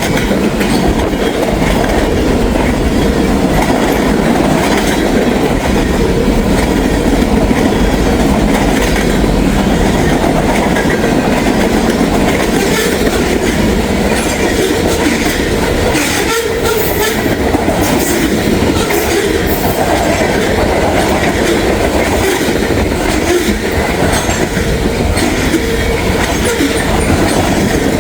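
Freight train's cars passing close by at speed: a steady, loud rumble of steel wheels on rail, with scattered sharp clicks, most of them in the middle of the passage.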